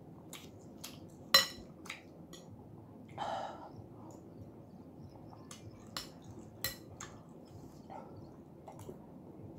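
A metal spoon clinks against a glass bowl of soup several times, the loudest clink ringing briefly about a second and a half in. A short slurp comes about three seconds in.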